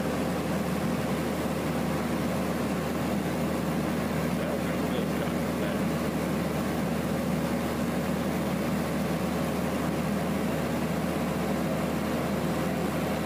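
Light propeller airplane's engine and propeller droning steadily, heard inside the cabin in flight.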